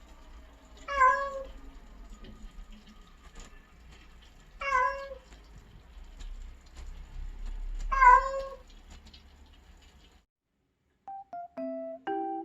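Mackerel tabby cat meowing three times, short calls about three and a half seconds apart. Near the end, gentle piano music begins.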